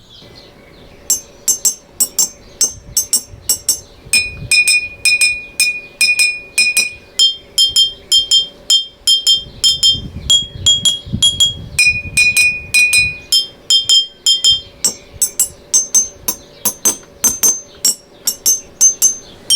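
Glass jars filled with water to different levels, tapped in a steady rhythm and ringing clearly. The pitch steps between a few notes as the taps move from jar to jar; the different water levels give each jar its own pitch.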